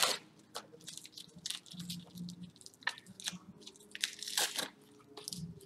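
Lightly adhesive, rubbery protective wrap being peeled and torn off a chrome exhaust head pipe: irregular crackling, crinkling and tearing, loudest about four seconds in.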